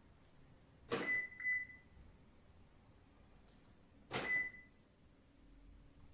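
Twice, a sharp clunk followed by a short, high electronic beep, about a second in and again about four seconds in; the first beep comes as two parts. Typical of a car's door locks actuating with the confirmation beep.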